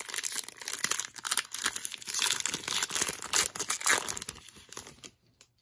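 Foil wrapper of a Donruss basketball trading card pack being torn open and crinkled by hand, a dense crackling that stops about five seconds in.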